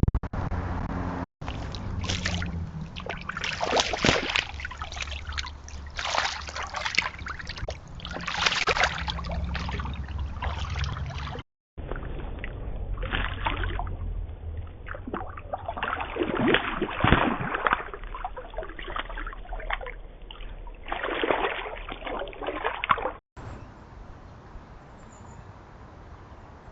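Lake water lapping and sloshing in irregular surges over a steady low rumble. The sound cuts abruptly between separate recordings three times, and the last stretch is quieter.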